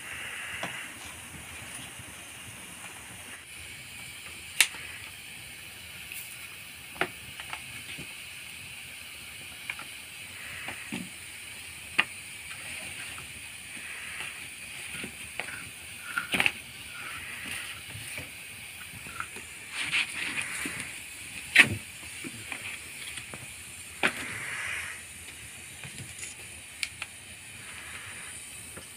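Open wood fire burning under bamboo tubes of rice and chicken. A steady hiss runs under sharp cracks and pops that come every few seconds at irregular times.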